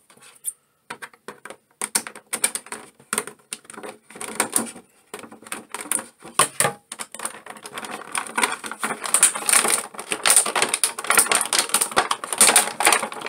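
Clear plastic blister tray crinkling and crackling as an action figure is worked out of it by hand: a run of irregular sharp crackles, sparse at first and turning dense and louder about two-thirds of the way through.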